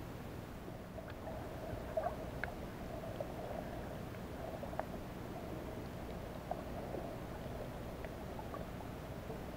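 Underwater ambience picked up by a camera held under water: a steady muffled hum with a low rumble and a few scattered faint clicks, the loudest about two seconds in.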